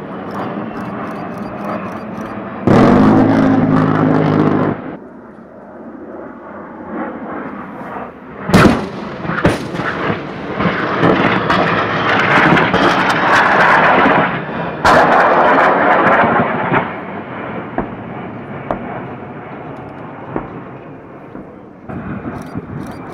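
A-10 Thunderbolt II firing its GAU-8 Avenger 30 mm rotary cannon in a burst of about two seconds: a deep, continuous buzzing 'brrrt' that cuts off abruptly. Several seconds later comes a single sharp bang, then the loud rushing whine of the jet's twin turbofan engines passing, with a sudden surge lasting about two seconds near the middle.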